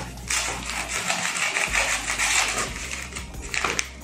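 Scissors cutting through a brown kraft-paper mailer and the stiff paper crinkling as it is handled and pulled open, with a few sharp clicks near the end.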